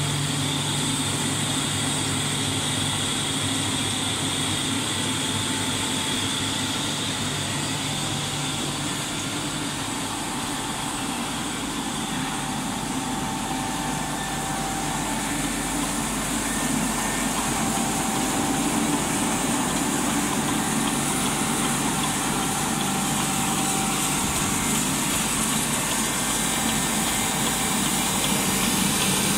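Six-colour central-impression flexo napkin printing, folding and cutting machine running: a continuous, steady mechanical noise with several steady hum tones. A low hum fades about ten seconds in and a slightly higher one comes up later.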